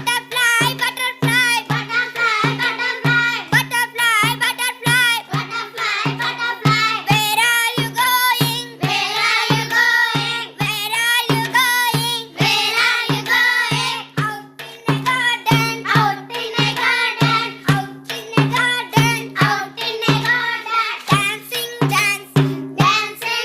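Background music: singing over a steady bass beat that pulses about twice a second.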